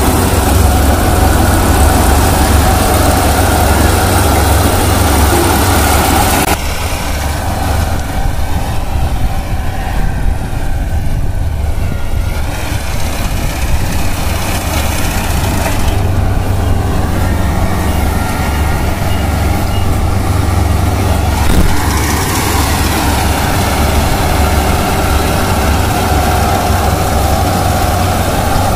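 Kubota combine harvester running steadily while cutting and threshing wheat: a constant low diesel engine drone with a mechanical hiss above it. The hiss drops back about six seconds in and comes up again about twenty-two seconds in.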